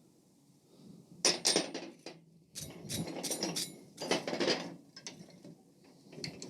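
Irregular metallic clinks, knocks and scrapes of steel tools and the workpiece being handled, with a few quick taps about a second in and denser clusters later.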